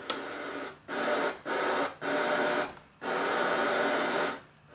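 Static hiss from a Uniden PC68LTX CB radio's speaker, cutting in and out sharply about five times, with the longest stretch near the end and a few short clicks.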